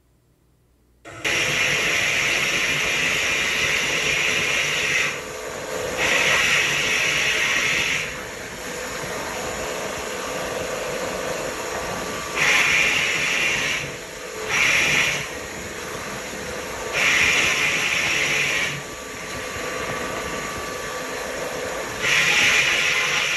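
Vapor honing cabinet blasting a carburetor with water and glass-bead slurry: a loud hiss that starts suddenly about a second in, then switches several times between louder blasts lasting one to four seconds and a quieter steady hiss.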